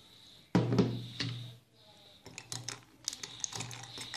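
A thud about half a second in as the glass water jug is set down, then a metal spoon stirring ice cubes in a stemmed glass, clinking repeatedly and irregularly against the glass and ice.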